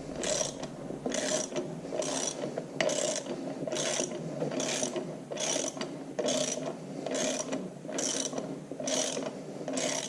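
Ratchet wrench being worked in steady strokes, its pawl clicking in a burst about every 0.8 seconds as a flywheel bolt is run down to draw the flywheel onto the crankshaft.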